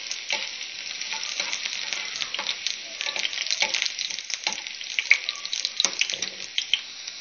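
Chopped garlic frying in hot oil in a pan, the start of a tadka: a steady sizzle with many sharp crackles and a few louder pops.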